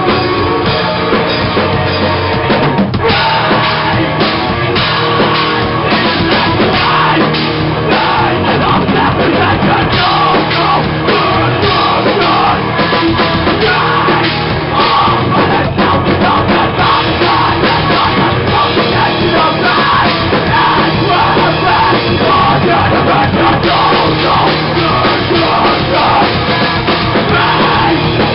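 Live heavy rock band playing loud: electric guitars, bass and a drum kit, with a vocalist yelling into a microphone. Held guitar notes give way to hard, dense drumming about three seconds in.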